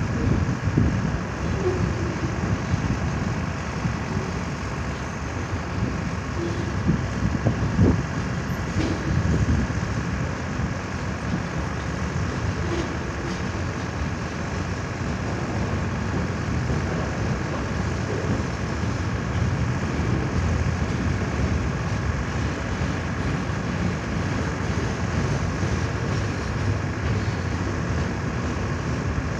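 CN train rolling past: a steady rumble with a faint, steady high whine running through it.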